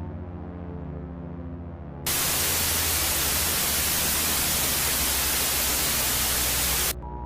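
Loud hissing static, like a lost broadcast signal, cuts in abruptly about two seconds in over a low droning background and cuts off just as suddenly near the end. The drone then returns with a steady higher tone.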